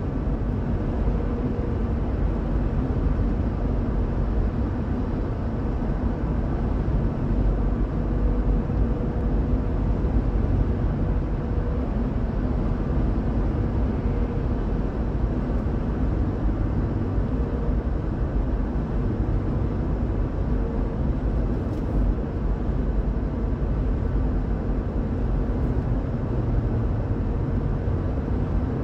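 A car cruising at highway speed, with steady road, tyre and engine noise.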